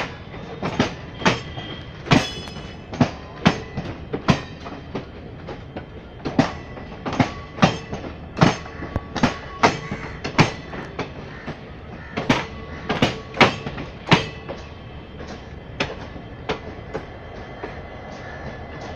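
Indian Railways passenger coaches rolling past on departure, their wheels clacking over the rail joints in groups of sharp knocks over a steady rumble, with a faint wheel squeal underneath. The clatter stops near the end as the last coach moves away.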